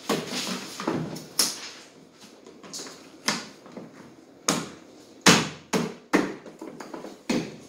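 Hollow plastic knocks and clacks as a toy ride-on motorbike's plastic wheel is pressed and tapped onto its axle by hand: a dozen or so sharp, irregular knocks, the loudest a little past the middle.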